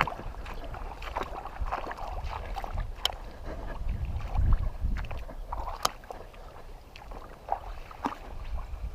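Handling noises aboard a kayak: knocks and rustling over a low rumble, with two sharp clicks about three and six seconds in.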